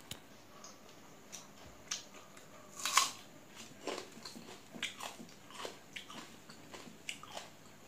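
Close-miked chewing and crunching of a mouthful of rice and greens eaten by hand: a string of short, sharp crunches, the loudest about three seconds in.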